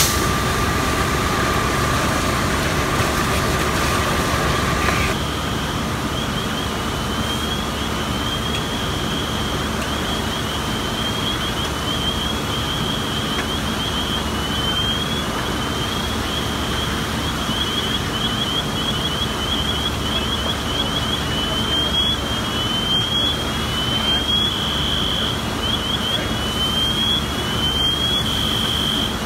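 Steady running engine noise at a fire scene. A steady mid-pitched tone stops about five seconds in and is replaced by a high-pitched electronic alarm: quick rising chirps, about three a second, broken now and then by short steady tones.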